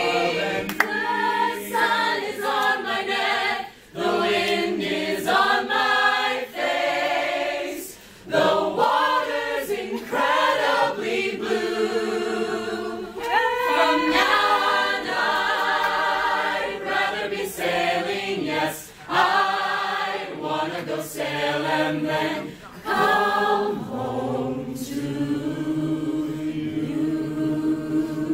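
An a cappella choir of men and women singing phrase after phrase with short breaks between, then holding one long chord near the end.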